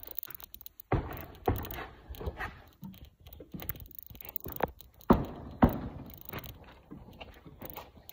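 Dull thumps and knocks around a four-wheeler as its tires are checked by hand, in two pairs: one pair about a second in, another about five seconds in, with light rustling between.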